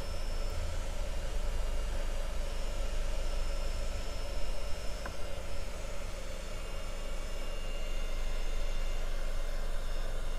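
Heat gun blowing steadily, its fan and rushing hot air drying isopropyl alcohol off a freshly cleaned circuit board, with a faint motor hum and whine underneath.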